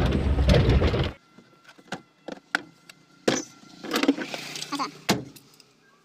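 Hyundai Santro Xing cabin noise while driving: engine and road noise with the rattling the owner hears from under the dashboard while the car runs. About a second in it cuts off abruptly, leaving a quieter cabin with scattered clicks, rattles and short rustling bursts.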